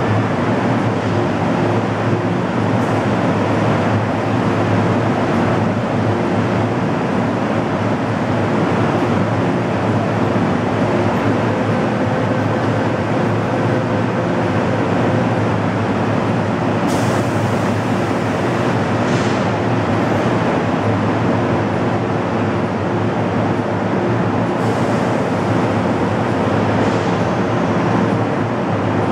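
MTR M-Train standing at an underground platform, giving a steady hum with several low tones. A couple of brief hisses come in the second half.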